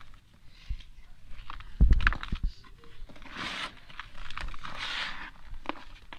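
Dry red dirt balls crushed in bare hands. About two seconds in comes a burst of sharp crunching and crackling, the loudest part. The crumbled dirt then rustles and sifts through the fingers in two longer gritty stretches.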